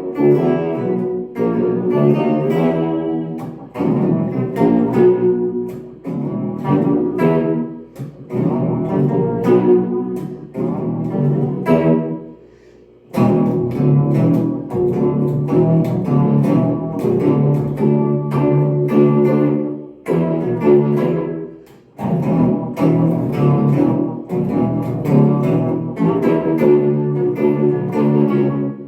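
Guitar played through an amp with an EHX Pitchfork pitch shifter set about three octaves down, plus vibe and delay effects, giving a deep, elephant-like tone; jazzy chord phrases with short pauses about 12 and 21 seconds in.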